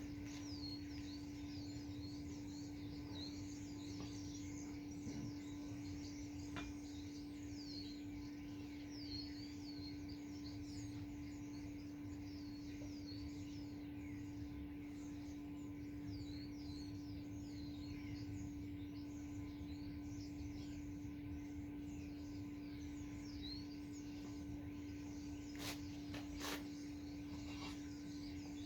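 Small birds chirping and twittering continuously over a steady low hum, with two sharp clicks close together near the end.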